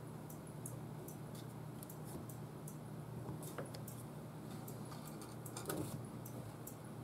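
Kittens playing: scattered light clicks and small rattles from paws and claws on a plastic ball-track toy and a wire crate, with a sharper rattle near the end.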